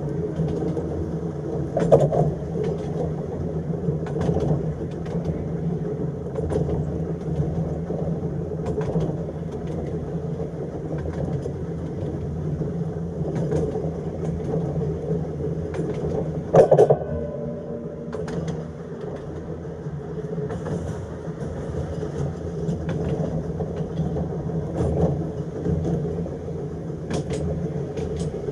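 Electric tram running along narrow-gauge track: a steady rumble and motor hum, with short clicks from the wheels on the rails every couple of seconds. A brief, louder clank with a short ringing tone comes about 17 seconds in.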